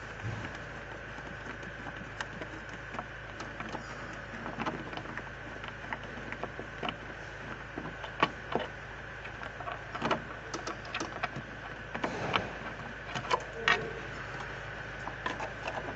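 Scattered light clicks and taps of metal parts being handled on a truck air dryer's housing, irregular and a little busier in the second half, over a steady background hum.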